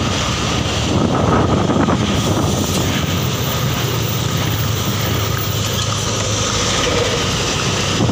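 Steady running noise of vehicles on the road: a low engine drone with tyre and road noise while driving close behind an intercity bus.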